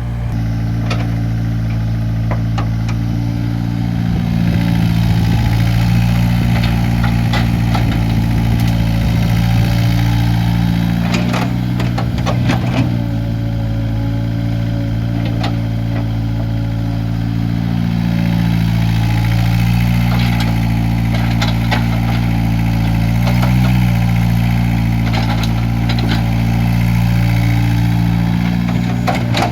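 Hydraulic excavator's diesel engine running steadily while digging, with occasional knocks and clanks from the machine working.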